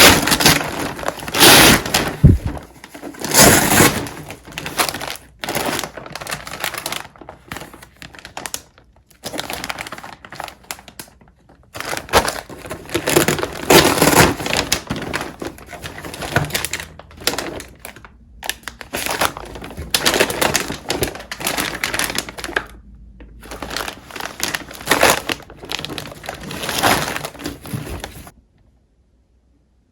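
Irregular crunching and crinkling noises in quick clusters, stopping abruptly near the end.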